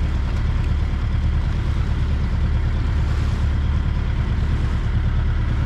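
A tour boat's engine running steadily, a low, even drone under the deck as the boat moves across the lake.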